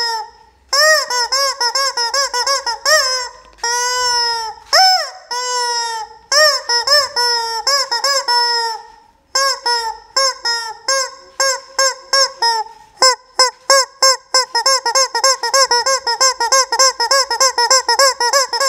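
Yellow rubber chicken squeaky toy squeezed by hand over and over, each squeeze giving a pitched honking squawk that rises and falls. A few are long drawn-out honks; in the last third they come as a fast run of short squawks, about three or four a second.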